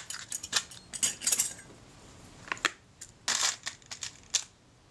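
Small metal camera parts clinking and rattling in a clear plastic parts tub as they are sorted and picked out: several short runs of sharp clicks.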